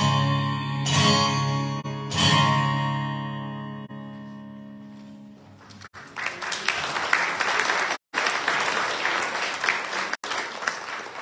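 Acoustic guitar closing a song with three strummed chords, the last one ringing out and fading over about three seconds. The audience then applauds for about five seconds.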